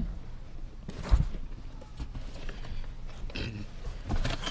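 Car interior parts being handled and fitted by hand: a short knock about a second in, then light clicks and rustling.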